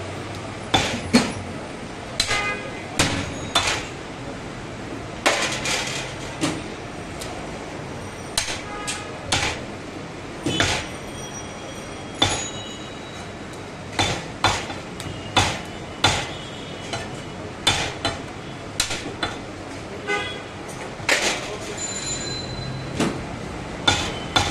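A heavy butcher's cleaver chopping beef against a wooden log chopping block: sharp, irregular strikes, about one or two a second.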